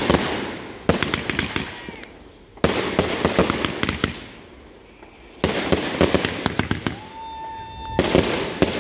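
Consumer aerial fireworks exploding overhead: about five loud bursts, one to three seconds apart, each trailing off into a spray of crackling. A whistling tone sounds for about a second near the end.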